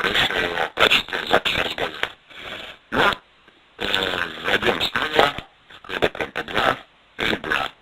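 A voice played back through an IP camera's audio stream compressed with the G.726 telephone codec: choppy and squashed, with nothing above about 4 kHz, the sign of heavy codec compression.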